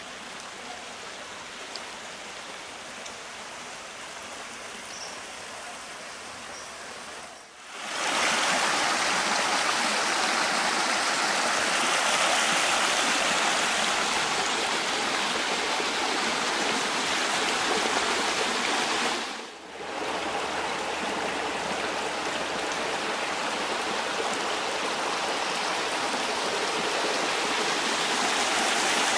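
Shallow stream running over rocks and stone ledges, a steady rush of water. It is fainter at first, drops out briefly about seven seconds in and comes back much louder, with another brief dropout near twenty seconds.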